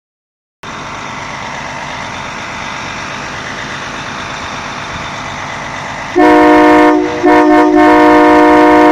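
A fire engine's engine running steadily, then about six seconds in a loud train-style air horn sounds a chord of several tones, in two long blasts with a short break between them.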